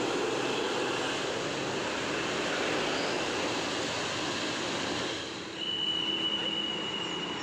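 Road traffic passing: a steady rush of engine and tyre noise that eases off about five seconds in. Then a single high steady squeal starts and holds to the end.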